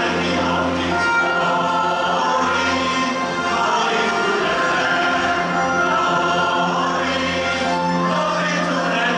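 A large church choir of men and women singing a hymn together in sustained, held notes.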